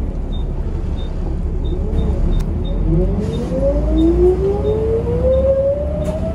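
Volvo B7RLE bus's ZF automatic gearbox whining, rising steadily in pitch as the bus accelerates in gear, over the low drone of the diesel engine and road noise inside the saloon. A faint light tick repeats about one and a half times a second.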